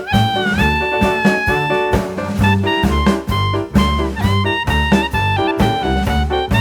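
Upbeat swing-style jazz music with brass melody, a walking bass and drums keeping a steady beat.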